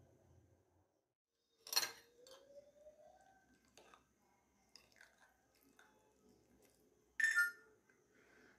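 A spoon clinking against a glass bowl on a glass plate: two sharp ringing clinks, one about two seconds in and one about seven seconds in, with lighter taps and scrapes in between.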